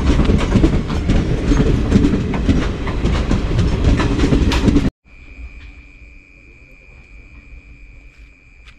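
Indian Railways express coaches rolling past close by as the train pulls out, a loud rumble with the wheels clacking over rail joints. After about five seconds it cuts off suddenly to a quiet spot with only a faint, steady high whine.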